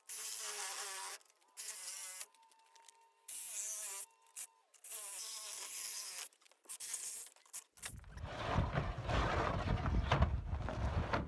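Reciprocating saw cutting a plastic pallet in about five short bursts, its motor whining up and dropping off between trigger pulls. From about eight seconds in, a louder, rough rumbling noise takes over.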